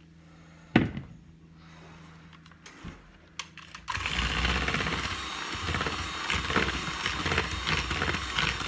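A sharp knock about a second in, then an electric mixer starts about four seconds in and runs steadily, mixing flour into wet cookie batter.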